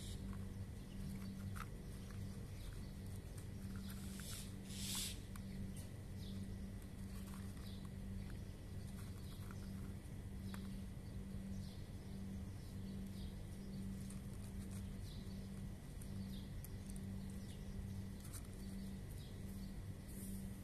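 Cats crunching dry kibble: a scatter of short, crisp bites. Under it runs a steady low mechanical hum, and there is a brief louder rustle about four to five seconds in.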